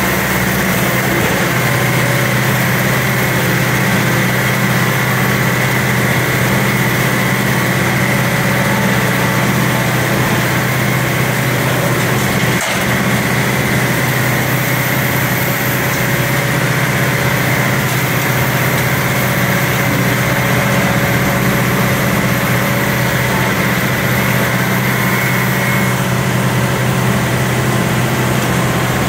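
Kuhn Primor 3560 straw chopper running on a tractor's PTO, its rotor chopping a straw bale and blowing the straw out of the spout, together with the tractor engine running steadily. A steady high whine sits over a low drone, the whine easing off a few seconds before the end.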